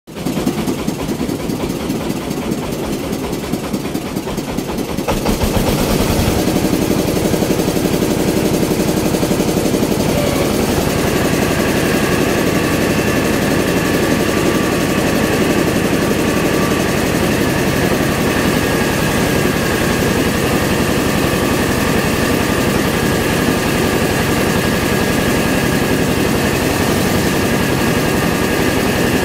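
A mobile rice mill's engine running, first at idle with rapid even pulses, then louder from about five seconds in as the machine takes up speed. A steady high whine joins about ten seconds in and holds to the end.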